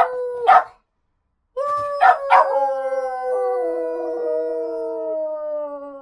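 A dog howling in two long howls. The first trails off just under a second in. After a short break the second begins about a second and a half in and holds on, slowly falling in pitch.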